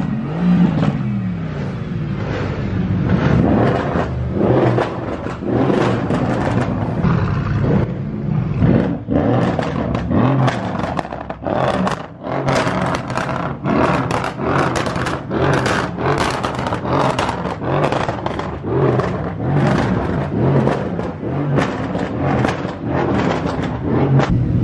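A car engine and exhaust revving again and again, with sharp cracks coming about twice a second through the second half.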